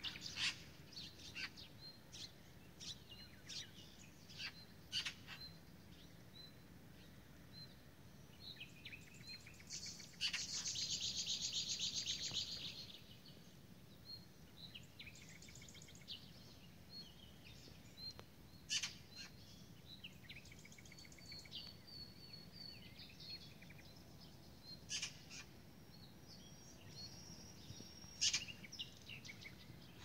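Several wild birds calling and singing, with short chirps and song phrases scattered throughout. About a third of the way in, one bird gives a loud, very rapid trill lasting about two and a half seconds.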